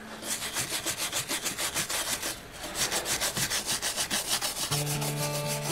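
A stiff brush swept back and forth over a freshly CNC-carved wooden relief in quick, even strokes, about five a second, with a short pause about halfway, clearing away sawdust and loose wood fuzz.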